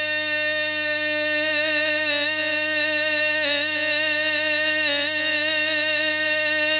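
A man singing a naat into a microphone with no instruments, holding one long, drawn-out note that wavers slightly in pitch, without words.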